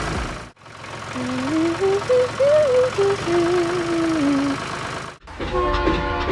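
Edited vehicle engine sound effects running steadily, broken by two abrupt cuts. Between the cuts a short tune of stepped notes plays over the engine rumble. Near the end a steady horn-like chord comes in with a regular clatter.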